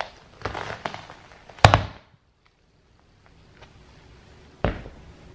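A sneaker stomping on and crushing a tall stacked sandwich of toast, cheese and candy, giving sharp crunches of breaking toast and squishing filling. The crunches cluster in the first two seconds, loudest about a second and a half in; after a pause comes one more hard crush near the end.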